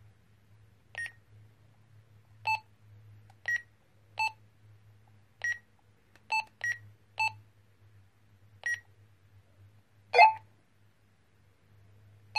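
Keypad beeps from a pair of Fetoo T-388 children's PMR446 walkie-talkies as their buttons are pressed: about ten short electronic beeps, irregularly spaced, in two alternating pitches, the loudest near the end. A faint low hum runs underneath.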